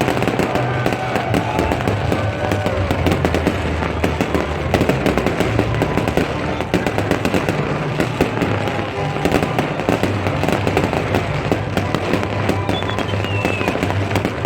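Dense, continuous crackling and popping of New Year's fireworks and firecrackers, with music playing underneath.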